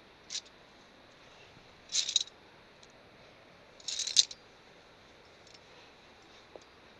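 Via ferrata lanyard carabiners clicking and rattling against the steel safety cable as they are handled on the line: one short click, then two brief clattering bursts about two seconds apart, the second the loudest.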